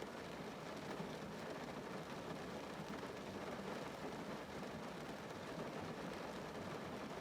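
Rain falling on a car's roof and windows, heard from inside the cabin: a steady, even patter of many drops with no pauses.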